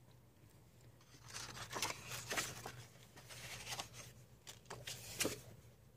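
Thick paper pages of a coloring book being handled and turned: faint, irregular rustling and brushing of paper that begins about a second in, with a sharper flick of paper about five seconds in.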